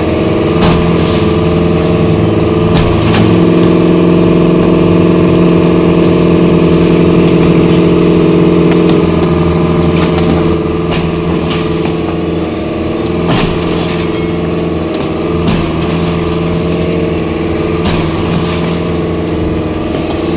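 Small excavator's diesel engine running steadily, louder for several seconds near the start and then settling, with scattered knocks and cracks of concrete hollow-block walls being broken down.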